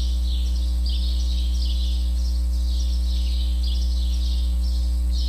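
Steady, loud low electrical hum with a high, rapidly repeated chirping over it, about two chirps a second.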